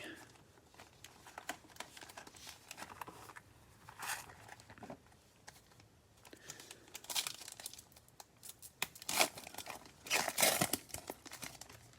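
Trading-card pack wrappers being torn open and crinkled by hand, in irregular crackling bursts, loudest around nine to eleven seconds in.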